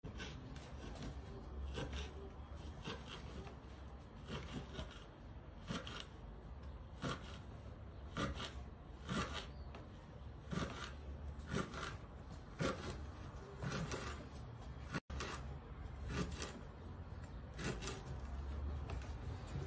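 Kitchen knife chopping fresh dill on a wooden cutting board: uneven knocks of the blade on the board, about one or two a second.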